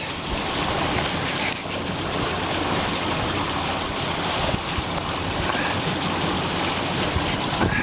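Water rushing past the hull of a MacGregor 26M sailboat moving fast under sail, a steady hiss.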